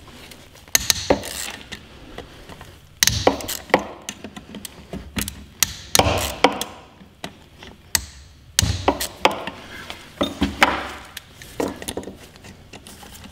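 A ratchet clicking in several short bursts a few seconds apart as the four screws holding the crankcase halves of a Peugeot Speedfight 2 scooter engine are loosened.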